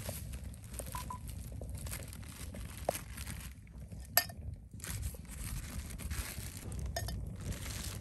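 Crinkling of a thin plastic bag as hands untie it and handle it over a small metal teapot, with a single sharp clink a little after four seconds in.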